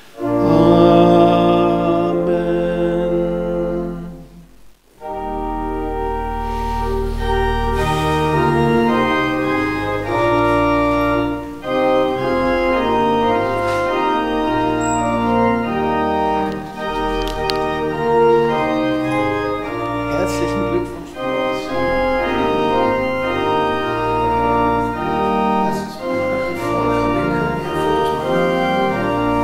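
Church organ playing: one chord held for about four and a half seconds, a short break, then organ music with sustained chords and moving lines. It follows straight after the closing blessing of the service.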